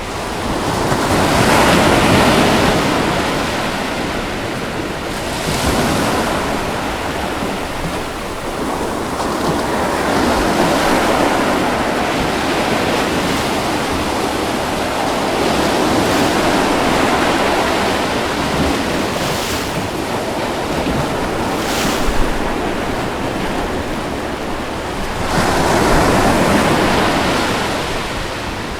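Ocean surf breaking and washing up the beach in slow swells that rise and fall every few seconds, the biggest about two seconds in and again near the end.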